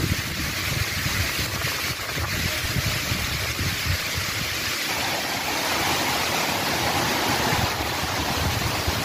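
Severe storm: strong wind rushing through trees and heavy rain, a steady hiss. Wind buffets the microphone with a low rumble during the first half.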